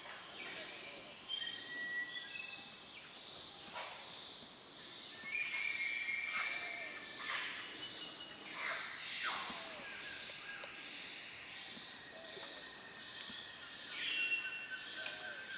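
Steady high-pitched insect chorus, with short whistle-like calls rising above it now and then.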